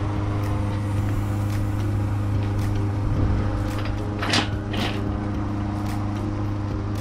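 Steady low hum with two sharp knocks about half a second apart a little past four seconds in, as the engine hanging from the hoist chain is nudged into place in the engine bay.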